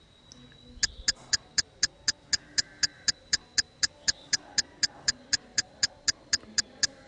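Fast, even ticking, about four ticks a second, starting about a second in, like a clock or countdown timer.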